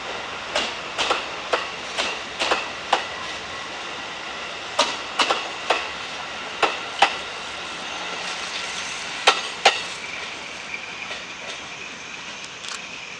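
Steel wheels of 35-series passenger coaches clacking over rail joints as the train rolls slowly past: sharp clacks in twos and threes, most of them in the first ten seconds, then fewer and fainter as the coaches draw away.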